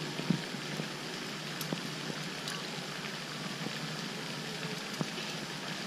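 Steady, even outdoor background hiss, with a few faint clicks.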